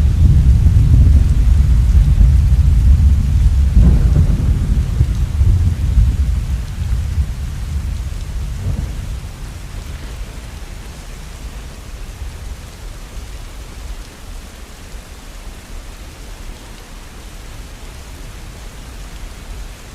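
A long roll of thunder that rumbles deep and loud, then fades away over about ten seconds, over steady falling rain.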